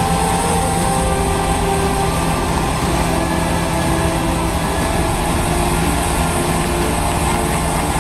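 Small excavator's engine and hydraulic drive running steadily as a hydraulic stump-planer attachment turns into a tree stump, a constant low drone.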